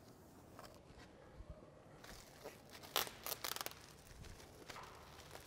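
Thin plastic window-insulation film crinkling and rustling as it is pressed onto double-sided tape and handled, faint, with a cluster of louder crackles about three seconds in.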